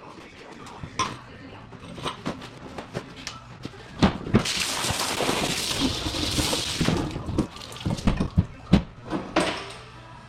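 Metal clanks and knocks of milking-parlour pipeline parts being handled while the milk filter is changed, with a hissing rush about four seconds in that lasts nearly three seconds.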